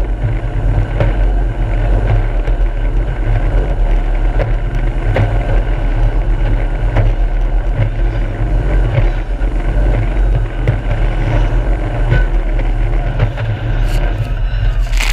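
Jet boat running flat out: a loud, steady low engine and water-jet rumble mixed with rushing wind and spray, with scattered short thumps as the hull hits the chop.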